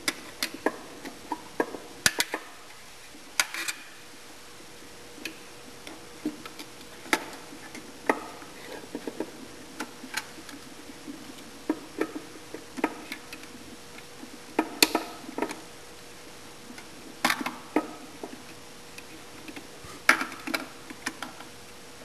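Irregular small metallic clicks and taps of a screwdriver and fingers working the terminal screws and wiring of a sawmill's up-down drum switch inside its steel control box, over a faint steady hum.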